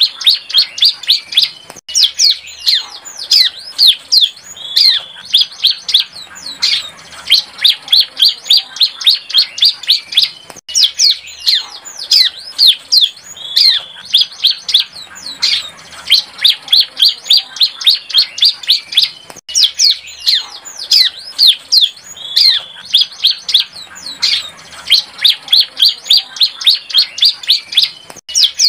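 Bar-winged prinia (ciblek) song from a young bird practising its song: rapid, loud runs of high chirps and quick down-slurred notes, broken by a brief pause about every nine seconds, with the same phrase coming round again.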